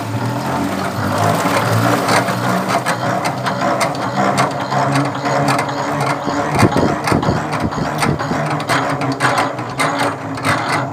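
Hand-cranked metal radial honey extractor spinning frames of honeycomb. Its gears whir steadily, with many quick clicks and rattles as the crank is turned.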